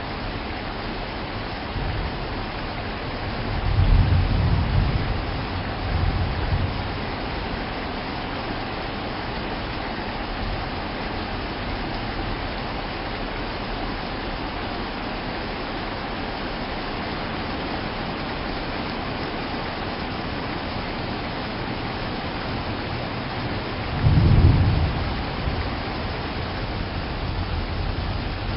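Steady rain with rolls of thunder: a low rumble about four seconds in with a second one soon after, and a louder rumble near the end.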